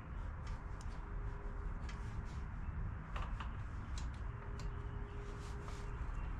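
Scattered light clicks and ticks of hand tools and small mower parts being handled during carburetor work, over a steady low rumble.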